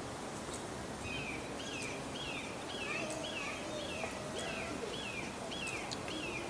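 A bird calling a steady series of short, downward-sliding chirps, about two or three a second, beginning about a second in, over outdoor background noise with a few faint clicks.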